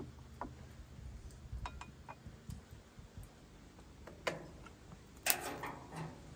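Scattered light clicks and taps, with a sharper knock about four seconds in and a short louder clatter about a second later.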